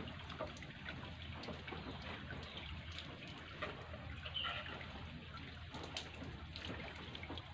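Water poured from a plastic jerrycan trickling and splashing over a goat as it is rinsed during a bath.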